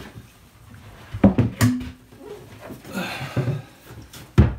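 Scattered knocks and clacks of hand work in a small room: a cluster of sharp ones just over a second in and two strong ones near the end, with a short breathy stretch around three seconds.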